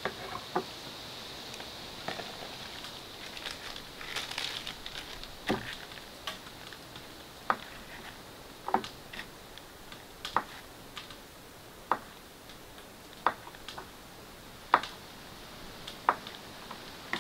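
A kitchen knife cutting food on a wooden cutting board: single sharp knocks as the blade meets the board, about one every second and a half, with softer rustling before them, over a faint steady hiss.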